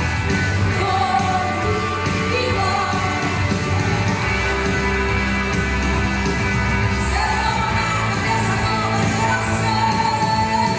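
Portuguese-language worship song playing: singing over a full band with a steady bass line.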